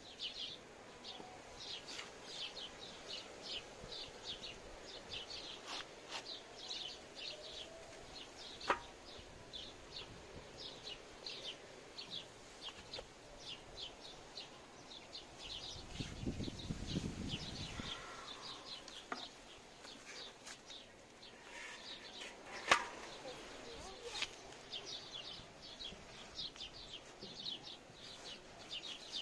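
Small birds chirping over and over throughout, with a couple of sharp clicks and a brief low rush about halfway through.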